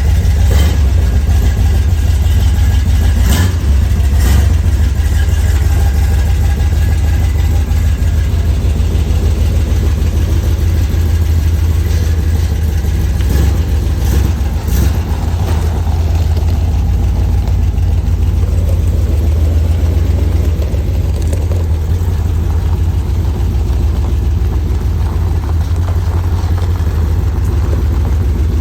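Dodge Ramcharger's 360 Magnum V8 running steadily with a loud, deep low rumble, and a few sharp clicks or knocks about three to four seconds in and again around thirteen to fifteen seconds.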